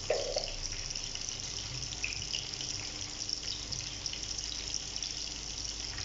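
Onions and green peppers sizzling steadily in a wok, with a few small crackles.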